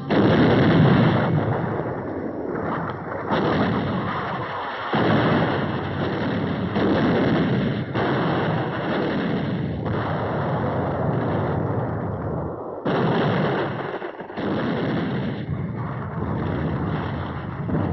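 Warships' heavy guns firing on the shore in a continuous barrage: a run of loud blasts that overlap one another, with a rumble between them.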